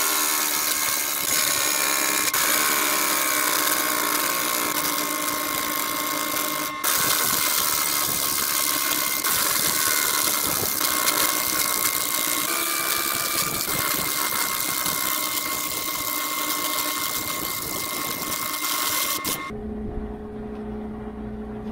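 Pneumatic air tool running at full speed with a steady high whine. The pitch shifts slightly partway through, it breaks off for an instant about seven seconds in, and it cuts off near the end, leaving a low hum.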